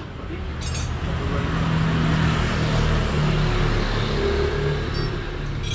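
A motor vehicle's engine running, swelling in loudness and then easing off, with a light clink just under a second in and another near the end.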